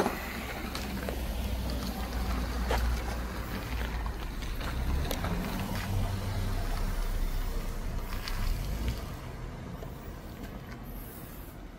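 A vehicle's engine running, a low rumble that fades away after about nine seconds, with a few light knocks over it.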